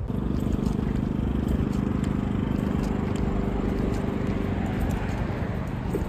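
Road traffic: a motor vehicle's engine with a steady low hum over road noise, the hum fading out after about four seconds.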